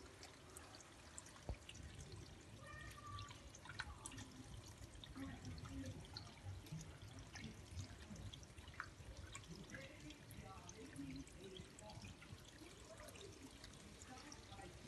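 Faint trickling and dripping of water from a small garden water feature, with scattered drips and a low rumble underneath.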